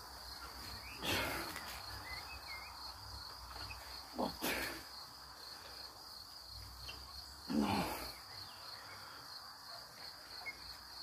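A man grunting with effort three times, about three seconds apart, as he curls a heavy tree stump; the grunts are the loudest sounds. Crickets chirr steadily behind.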